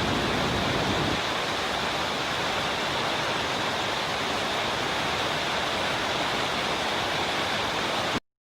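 Curug Seribu waterfall: a steady, unbroken rush of falling water that cuts off abruptly near the end.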